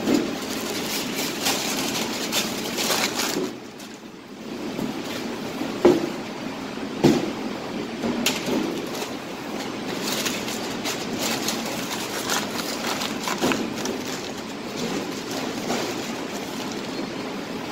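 Steady commercial-kitchen background noise, with a couple of sharp knocks or clatters about six and seven seconds in.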